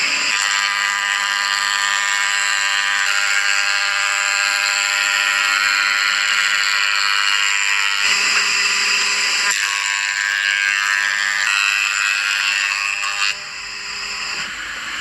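Woodworking machinery running with a steady high whine over a hiss. The sound shifts about eight seconds in and drops in level near the end.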